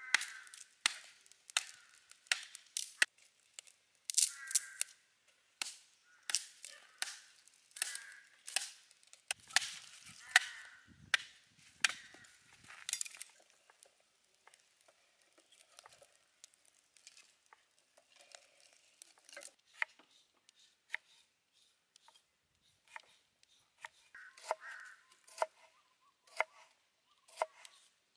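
A large knife chopping and splitting sticks of firewood into kindling: sharp, irregular strikes about one a second, loud at first and fewer and fainter in the second half.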